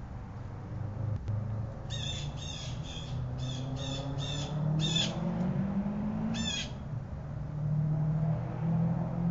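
A bird calling: a quick series of about eight short calls, then a single call a second and a half later, over a steady low background hum.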